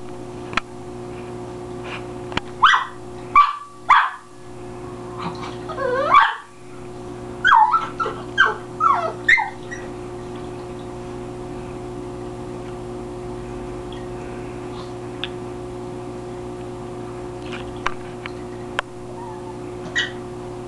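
Two pugs squabbling over a chew bone, giving a flurry of short barks and yips from a few seconds in until about halfway through, then falling quiet apart from a few small clicks. A steady hum runs underneath.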